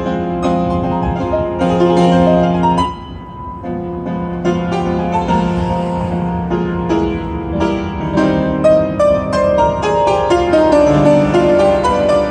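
Upright piano played solo, chords and runs of notes. There is a brief quieter moment about three seconds in, then the playing turns faster and denser in the second half.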